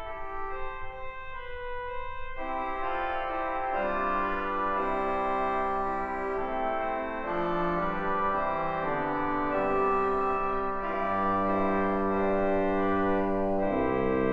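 Pipe organ playing its swell-division reed stops: a thin single line on the oboe stop at first, then fuller chords joining from about two seconds in, building toward the full reed chorus. The sound grows steadily louder, with deeper notes added near the end.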